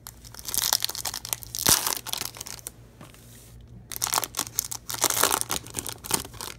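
Trading-card pack wrapper being torn open and crinkled in the hands, in two bouts of crackling with a short pause between and one sharp snap during the first bout.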